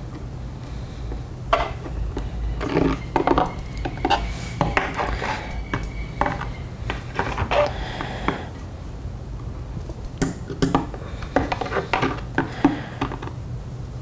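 Armature wire being bent and twisted by hand: irregular light metallic clicks, scrapes and rattles, over a steady low hum.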